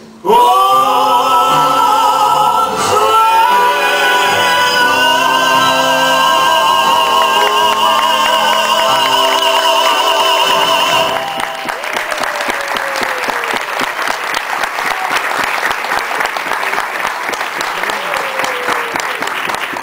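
A singer holds one long final note with vibrato over the tango accompaniment, sliding up into it at the start. About eleven seconds in the music ends and the audience breaks into applause.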